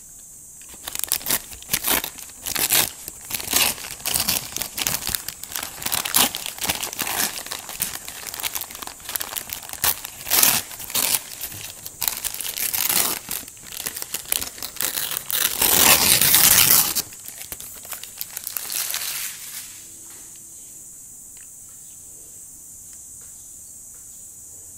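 Paper bag of McDonald's Shake Shake Fries crinkling and tearing as it is handled and opened, then shaken in one loud steady burst of about a second and a half before the rustling stops.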